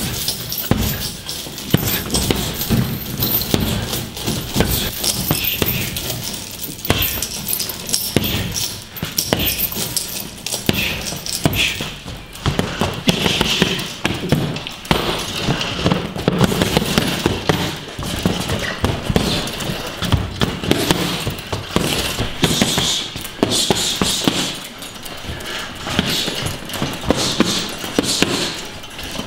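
Boxing gloves striking focus mitts and punch bags, a fast, continuous run of thuds and slaps.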